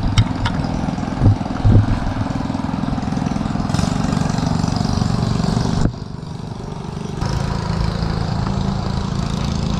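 A small engine running steadily. About six seconds in its sound thins and drops for a second or so, then comes back.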